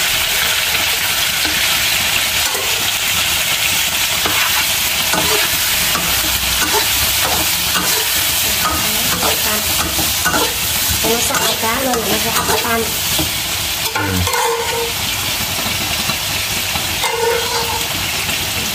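Pieces of climbing perch sizzling in hot oil with garlic and shallot in a non-stick wok, a steady hiss broken by frequent scrapes and taps of a spatula stirring and turning the fish against the pan. This is the searing stage before the fish is braised.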